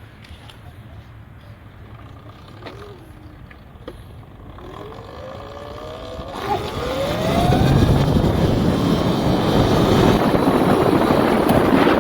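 Sur Ron X electric dirt bike accelerating: the electric motor's whine rises in pitch about five seconds in. From about seven seconds on, a loud rushing noise of wind on the microphone at speed takes over.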